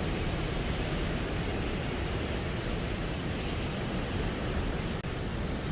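Rough sea surf and strong wind buffeting the microphone, a steady dense roar, with a brief dropout about five seconds in.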